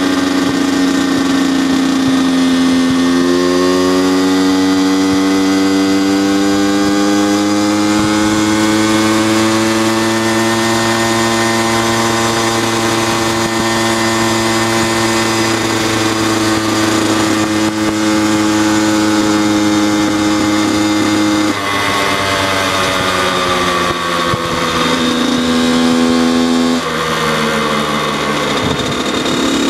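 Kawasaki KX85 two-stroke dirt bike engine running under way, heard from the saddle. Its pitch climbs slowly over the first several seconds as the bike speeds up and then holds steady. It drops suddenly about three-quarters of the way through, as at a gear change or the throttle rolling off, rises briefly, and falls again near the end.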